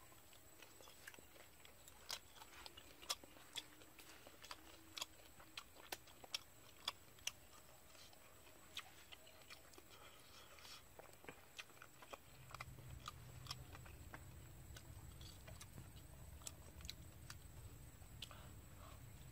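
Quiet eating sounds: a man chewing an egg cooked on clay, with many small sharp clicks from his mouth and from fingers picking the egg apart. A faint low rumble joins about two-thirds of the way through.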